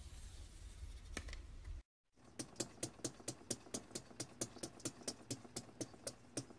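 A rapid, even run of about twenty sharp clicks, roughly five a second, from a cat reared up against a mirror. It starts about two seconds in, after a short silent gap; before that there is only a low rumble of room noise with a couple of faint clicks.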